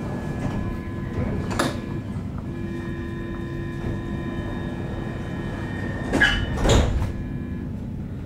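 Stockholm Metro C30 train standing at a platform: a steady low hum with several held tones, broken by a few sharp knocks, the loudest about six and a half seconds in.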